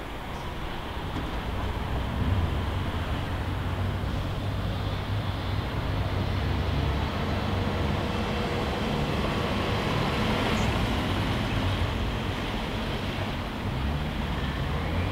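Road traffic passing close by: a steady rumble of engines and tyres that swells about two seconds in and holds.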